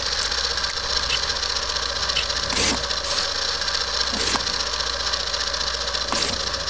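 Steady mechanical running clatter over a low hum, with a brief swell of noise about every two seconds.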